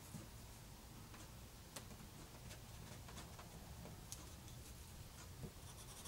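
Faint scratching and light ticks of a pencil drawing lines on paper, coming at irregular intervals.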